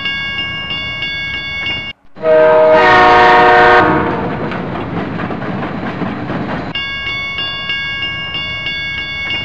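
Level-crossing warning bell ringing rapidly, about three rings a second. It breaks off about two seconds in; a train horn then sounds for about a second and a half, followed by the rumble and clatter of a train passing on the rails. The crossing bell starts ringing again near the end.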